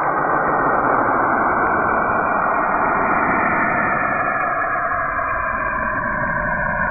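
Space sounds presented as the planet Saturn, likely radio emissions converted to audio: a loud, steady rushing noise with faint tones slowly shifting within it.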